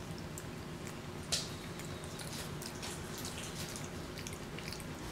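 Faint scattered wet clicks and smacks from a capuchin monkey eating oatmeal, with one sharper click about a second and a half in, over a low steady room hum.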